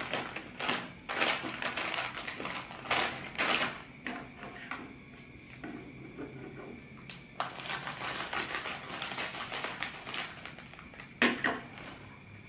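Small plastic kerupuk snack packets crinkling and rustling as they are torn open and handled, in irregular bursts, with a quieter lull for a few seconds in the middle.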